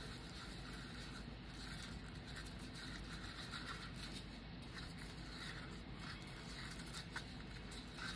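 Faint scraping and rubbing of a stir stick against the inside of a small paper cup as resin is mixed, with a few soft ticks.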